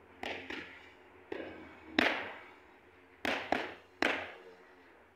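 Boxing gloves smacking into focus mitts: seven sharp punches in quick combinations, some in fast pairs, each hit trailing off briefly. The loudest lands about two seconds in.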